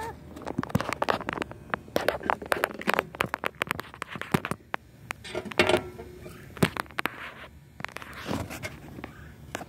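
Scratching, scraping and clicking of a phone being handled close to its microphone: a fast, irregular string of sharp scrapes and knocks.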